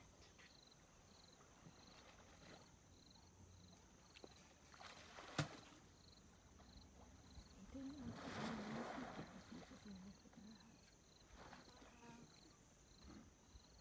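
Near silence: faint outdoor ambience with a soft chirp repeating about two or three times a second, one sharp click about five seconds in, and a brief wash of noise with faint low voices about eight seconds in.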